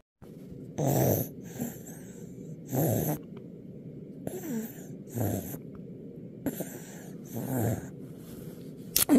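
A sick young child coughing repeatedly, four stronger coughs about two seconds apart with fainter coughs and breaths between. A sharp click near the end.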